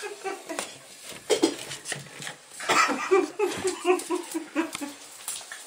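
Puppy whining in a quick run of short, pitched whimpers while it paws and noses at a gap where its ball is stuck, with scattered clicks and knocks from its claws and body against the tile and door.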